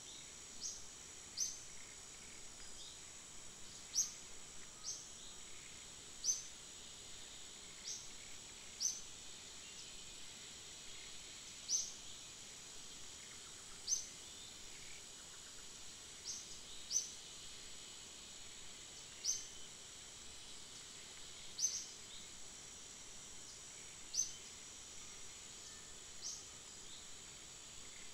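Outdoor ambience: a steady, high insect drone, with short, high, falling bird chirps repeated every second or two.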